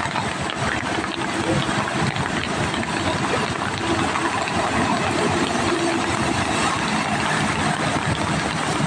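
Steady rush of floodwater pouring across a road, with a vehicle engine running underneath it.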